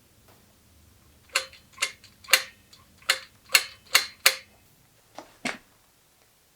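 A run of seven sharp taps, about two a second, each with a brief ring, then two softer taps near the end.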